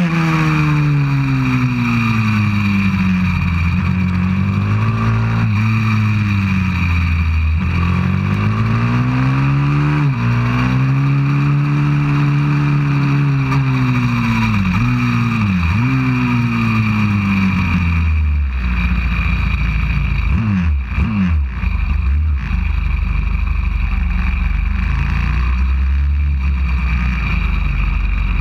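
190cc single-cylinder four-stroke pit bike engine heard onboard, its pitch repeatedly climbing under throttle and dropping sharply at gear shifts and corner entries. About 18 seconds in it falls to low revs and runs steadily, with a couple of short throttle blips, as the bike slows off the track.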